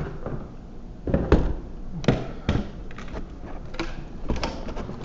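A series of irregular knocks and thumps, the loudest about a second in and twice more soon after, with lighter clatters near the end.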